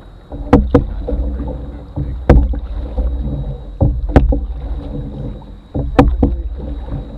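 Canoe being paddled: sharp knocks on the hull come every second and a half to two seconds, some in quick pairs, each ringing briefly through the boat, over a steady low rumble and water sloshing.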